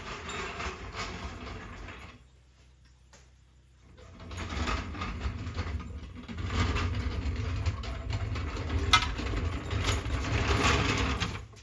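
A metal jack rattling and rumbling as it is rolled along the ground, with a brief clatter at the start, a pause, then a longer stretch of rolling with a sharp click partway through.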